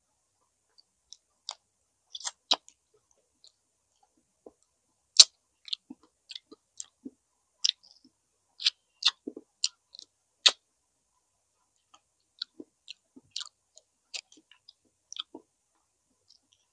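Close-up eating sounds of a person chewing grilled chicken inasal and rice: irregular short, sharp wet clicks and smacks from the mouth, coming in loose clusters with short gaps between.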